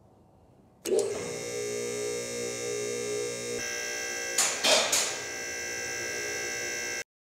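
Bendpak HD-9XW four-post lift's electric-hydraulic power unit starting about a second in and running with a steady whine as the lift rises. A few seconds later come two loud clanks close together: the lift's safety locks engaging. The sound cuts off abruptly near the end.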